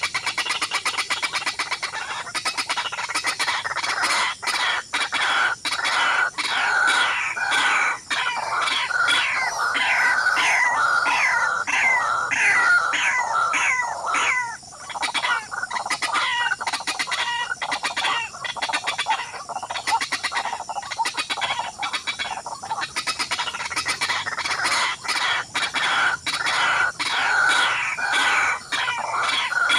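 Birds calling: a long run of short, rapidly repeated falling chirps, with many sharp clicks mixed in.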